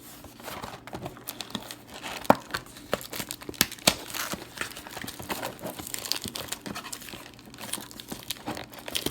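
Packaging of a sealed trading-card blaster box crinkling and tearing as it is worked open by hand, with irregular crackles and a few sharper snaps.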